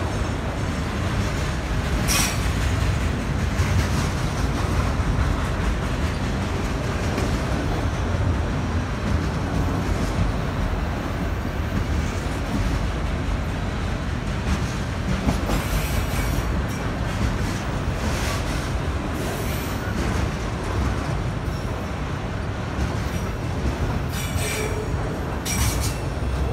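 Freight train of autorack cars rolling past close by: a steady rumble of steel wheels on the rails, with a few sharp clicks from the wheels.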